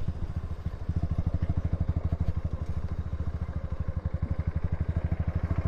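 Motorcycle engine running steadily, its exhaust giving a fast, even beat of low pulses.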